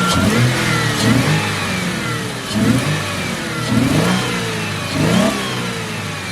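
Ford Mustang engine being revved: about five quick blips, each rising and then sinking back, with plenty of intake noise from running without an air filter. It pulls up cleanly with no stumble, the misfire cured by a tune-up.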